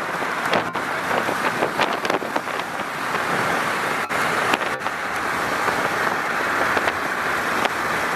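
Steady rushing noise of a car driving, heard from inside the cabin, with a few faint ticks.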